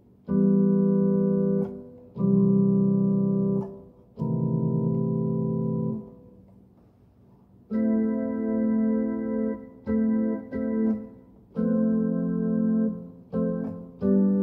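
Portable electronic keyboard playing chords on an organ voice. Each chord holds steady without fading. Three chords of about a second and a half each come first, then a pause of nearly two seconds, then a quicker run of shorter chords.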